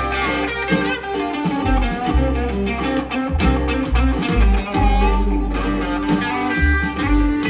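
Live blues band playing an instrumental passage: an electric guitar solo over strummed acoustic guitar and a bass line.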